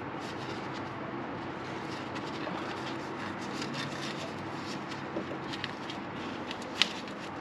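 Scattered light clicks and taps of hand tools and small parts being handled during work on a car, one sharper click near the end, over a steady background hum.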